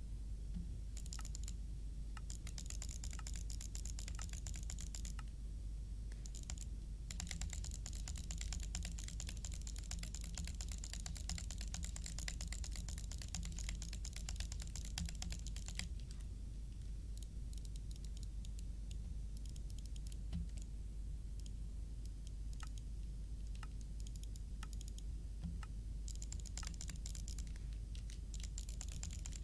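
Computer keyboard typing: fast runs of key clicks with scattered single clicks between them, over a steady low hum.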